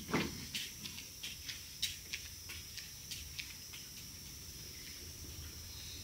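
Faint, steady high-pitched chirring of crickets or similar insects, with a scatter of irregular sharp clicks during the first few seconds.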